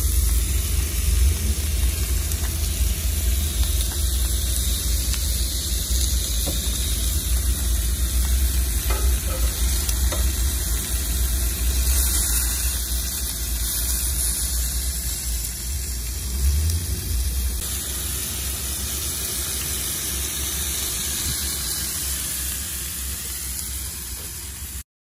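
Steak pieces and asparagus sizzling steadily on a cast-iron griddle top over a dual-burner camp stove, with a strong low rumble underneath that eases off about two-thirds of the way through.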